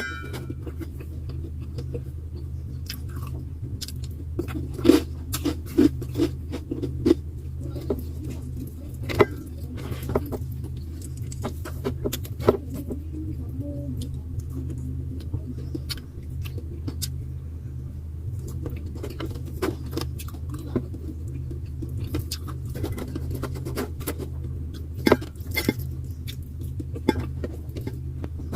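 Eating at close range: scattered small clicks, taps and crunches, a few of them louder, over a steady low hum.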